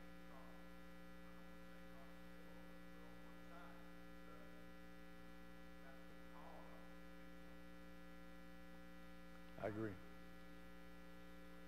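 Steady electrical mains hum, with a congregant's voice faint and distant from the microphone and a short louder spoken sound near the end.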